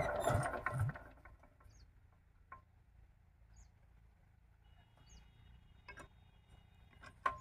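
8 hp diesel water-pump engine turning over in slow, even thumps about two a second, which stop about a second in. Then a few faint metallic clicks as the engine is handled, with brief bird chirps.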